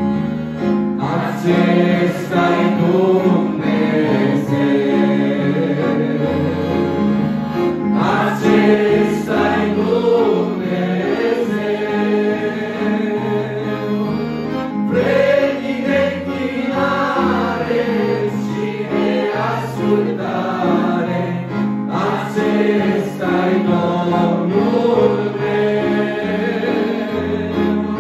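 Mixed youth vocal group of women and men singing a Romanian worship song together into microphones, over electronic keyboard accompaniment with sustained low chords.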